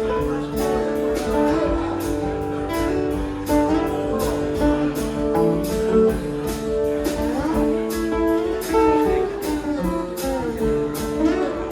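Two guitars playing together without singing: one strummed in a steady rhythm of a few strokes a second, the other a slide guitar playing held notes that glide between pitches.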